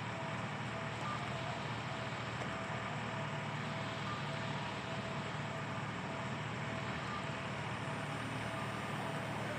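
Steady hum and hiss of stationary electric trains' onboard equipment running, with a faint tone that keeps breaking off and coming back.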